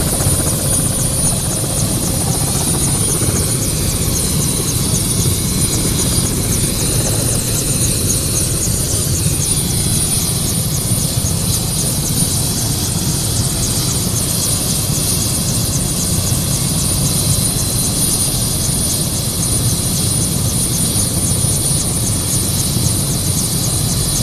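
Turbine helicopter running on the ground: a steady, loud engine and rotor noise with a thin, high, constant whine.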